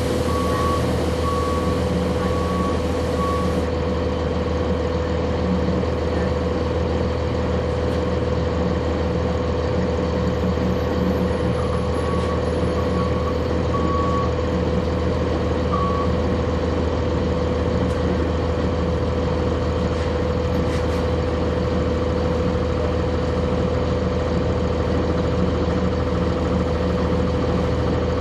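The Cummins ISC diesel of a 1999 Nova Bus RTS transit bus, heard from on board, runs steadily with a constant whine over its low hum. A short electronic beep repeats in the first few seconds and again around the middle, and a hiss sounds over the first few seconds.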